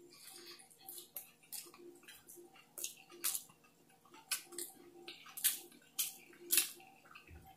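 A person chewing a mouthful of burrito close to the microphone: soft, wet mouth smacks and clicks at irregular intervals, roughly one or two a second.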